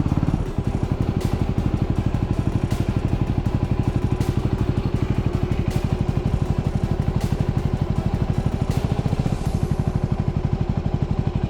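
Adventure motorcycle engine running at a steady speed while riding, its firing pulses coming fast and even.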